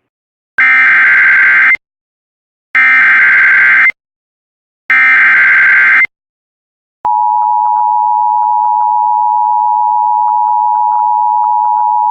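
Emergency Alert System SAME header: three identical bursts of digital data tones, about a second each, encoding a severe thunderstorm warning. About seven seconds in, the steady two-tone attention signal (853 and 960 Hz) starts and holds.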